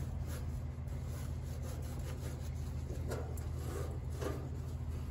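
A cloth rag rubbing and wiping across the bare steel underside of a car hood in a few soft strokes, clearest about three to four seconds in, over a steady low rumble.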